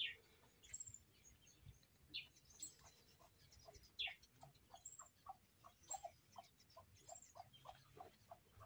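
Near silence, with faint bird calls: a regular run of short notes, about three a second.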